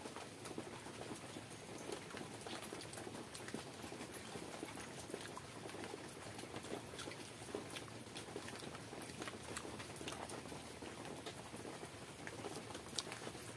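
Close-miked eating sounds: chewing and lip smacking, with many small wet clicks as bare fingers work through soft food.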